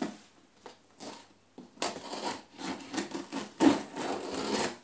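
A scissor blade drawn along the taped seam of a cardboard box, slitting the packing tape: a few light sounds at first, then from about two seconds in a continuous scraping as the blade runs through the tape.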